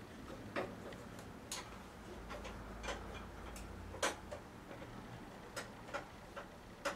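Light clicks and taps from hands and tools working at a riding mower's spring-loaded belt idler pulley, about one a second at irregular spacing, the loudest about four seconds in.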